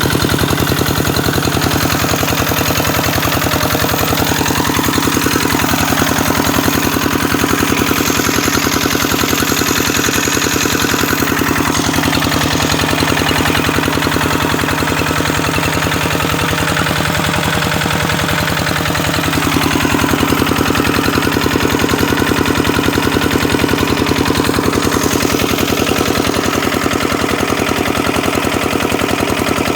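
Kubota engine running steadily with loud, rapid, even exhaust beats; its speed shifts slightly and it gets a little louder about two-thirds of the way through.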